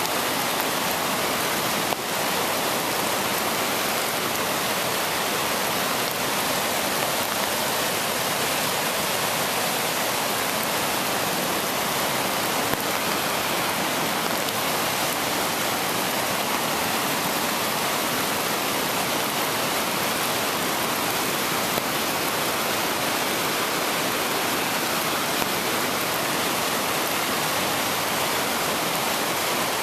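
Swollen river in spate after two days of heavy rain, its white water rushing in a steady, unbroken noise.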